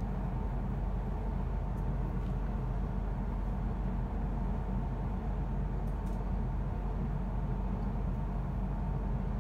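Steady low hum and rumble inside a train carriage standing at a station platform, with a faint steady whine above it.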